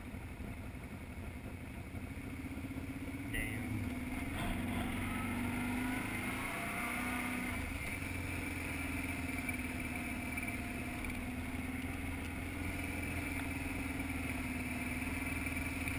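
ATV (four-wheeler) engine running, heard from on board the quad as it rides over a dirt track. The revs rise and fall a few times about 3 to 6 seconds in, then hold fairly steady.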